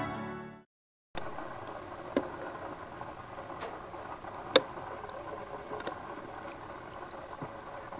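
Organ music fades out, a brief silence follows, and then a steady low hiss of background noise runs on. A few sharp clicks are heard over it, the loudest one near the middle.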